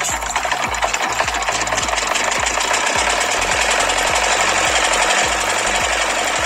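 Miniature model water pump's small motor running with a fast, steady rattle, while water gushes from its outlet and splashes; the rushing hiss of the water grows about two seconds in.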